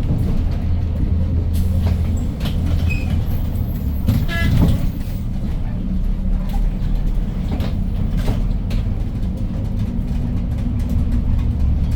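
Hyundai New Super Aero City city bus driving, heard from inside: its CNG engine drones steadily, with rattles and knocks from the body. A brief high squeal sounds about four and a half seconds in.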